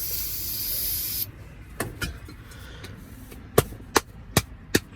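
Aerosol can of starter fluid spraying into the engine's intake in one hiss that stops about a second in. Several sharp clicks or knocks follow in the second half.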